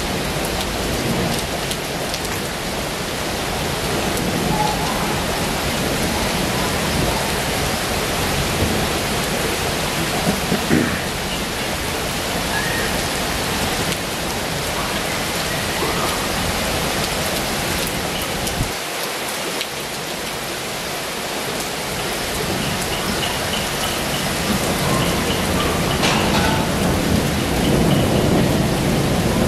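Heavy rain falling steadily in a dense hiss, with a low rumble swelling near the end.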